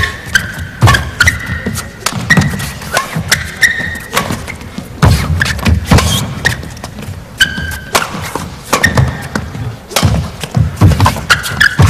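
Badminton rally: repeated crisp racket strikes on the shuttlecock and thuds of players' footfalls and lunges on the court, with short high squeaks of court shoes between them.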